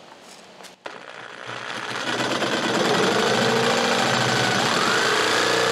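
Electric jigsaw with a new blade starting up about a second in and cutting through a sheet of pressure-treated plywood, growing louder over the next second or two, then running steadily, its pitch rising a little near the end.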